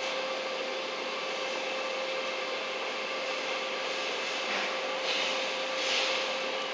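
Steady machine hum with a constant tone under a hiss, with a few brief swells of louder, higher hiss in the second half.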